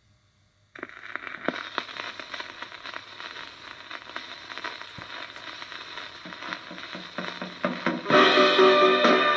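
Surface noise of a 7-inch vinyl single turning on a turntable, a steady hiss with scattered crackles and pops from the run-in groove, starting a moment in. The record's soul song then starts loudly about eight seconds in.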